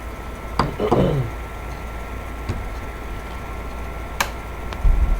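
Sharp clicks and taps of small laptop parts being handled while taking apart a laptop's display assembly, the loudest click about four seconds in and a low thump near the end, over a faint steady whine.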